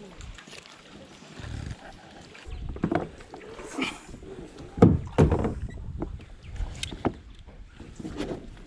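Wind buffeting the microphone, with a rumble setting in about two and a half seconds in, over a series of knocks and clunks, the loudest about five seconds in.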